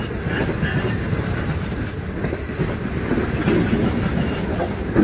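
Indian Railways ICF-built EMU local train passing close by, its wheels running on the rails with a steady low rumble.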